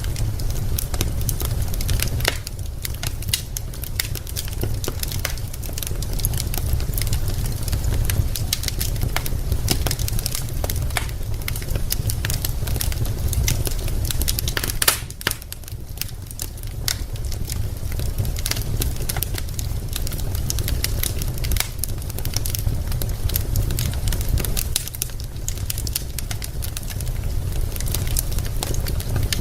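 Wood fire crackling in a fireplace: a steady low rumble with constant small pops and snaps from the burning logs, and one louder pop about fifteen seconds in.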